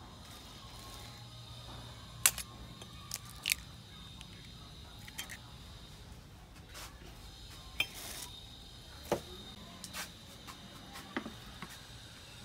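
Eggs being cracked open into a ceramic bowl: several sharp separate cracks and clicks of eggshell, spread a second or so apart.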